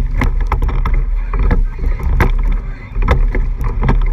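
Racing eight under way: water rushing along the hull just below the microphone over a heavy low rumble, with repeated sharp clicks and knocks from the sweep oars turning in their oarlocks and the blades splashing in and out with each stroke.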